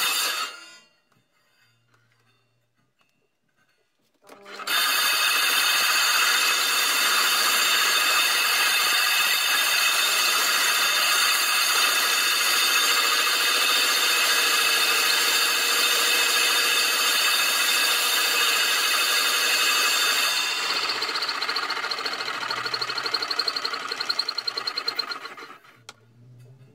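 A hand file scraping the edge of a crash cymbal spinning on a lathe, which sets the cymbal ringing in many steady metallic tones. The filing stops about half a second in and starts again after a few quiet seconds. Near the end the sound turns softer and wavering, then stops about a second before the end.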